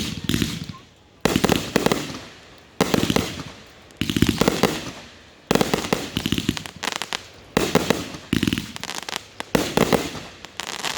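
Consumer fireworks going off in a quick series of about nine sharp bangs, roughly one a second. Each bang is followed by about a second of crackling that fades before the next.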